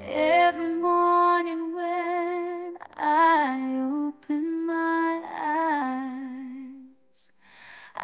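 A woman's voice singing a slow ballad melody in phrases, with vibrato on the held notes, over light accompaniment; it drops almost to silence for a moment about seven seconds in.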